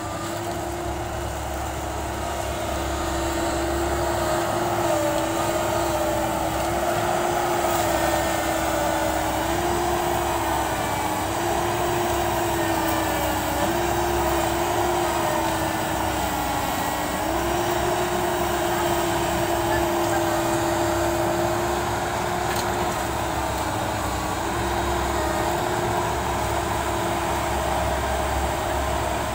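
Sugarcane harvester's engine running steadily at working speed, with a steady hum whose pitch sags slightly and recovers every few seconds as the machine takes load.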